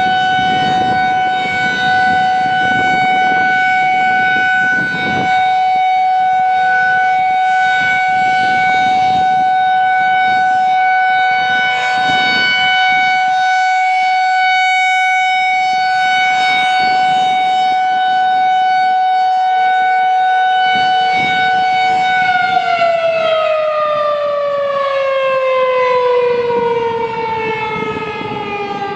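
Federal Signal 2001-SRNB electromechanical warning siren sounding a steady tone, then winding down with its pitch falling steadily over the last several seconds.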